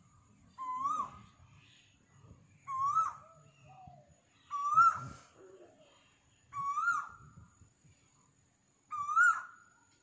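Asian koel calling: five loud rising whistled notes about two seconds apart, the later ones slightly higher than the first.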